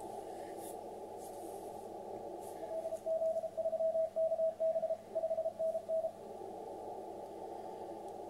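Morse code (CW) signal from the Liberian station A82X received on a ham transceiver on the 10 m band: a single tone of about 650 Hz keyed in dots and dashes, starting about two and a half seconds in and lasting about three and a half seconds. It sits over a steady, muffled hiss of band noise passed through a narrow receive filter.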